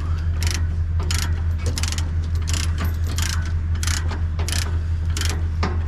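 Machinery running with a steady low hum, over which come sharp metallic clicks and clanks, about two a second.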